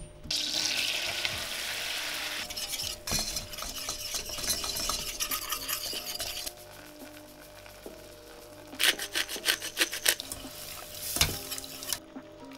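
Butter sizzling in a hot stainless-steel saucepan, then a wire whisk stirring and scraping round the pan as the roux and milk are worked into a béchamel sauce. A run of quick whisk strokes against the pan comes about two-thirds of the way through.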